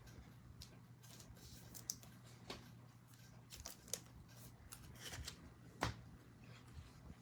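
Faint handling of trading cards: scattered light clicks and rustles as cards are slid and flipped in the hand, over a low steady hum.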